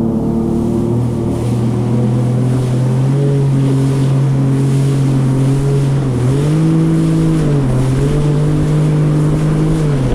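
Jet ski engine running under way, its pitch rising with throttle about six seconds in, dropping back, then rising again.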